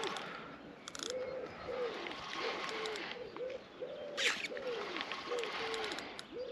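Soft, low hooting calls, each a short rise-and-fall in pitch, repeated about twice a second and overlapping as if from more than one caller. Two brief high rasps come about a second in and again past the middle.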